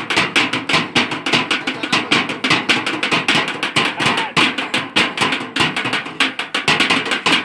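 Children beating a metal tin and a box with their hands as makeshift drums, a fast, steady rhythm of about six strikes a second.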